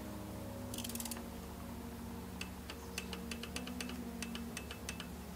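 Ratchet clicking from a torque wrench turning a 10 mm camshaft bearing cap bolt down. There is a quick run of clicks about a second in, then a string of spaced single clicks.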